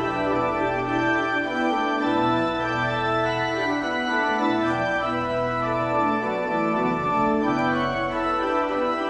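Church organ playing the postlude: held chords over a bass line that moves every second or two.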